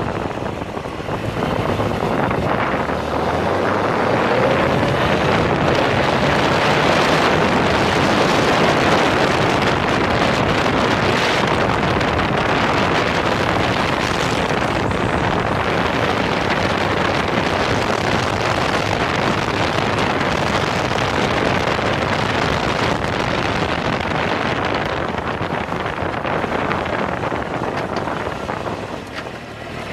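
Wind rushing over the handlebar-mounted camera's microphone as a Suzuki GSX-R600 inline-four sport bike is ridden at road speed, its engine running under the wind. The wind noise eases briefly near the end.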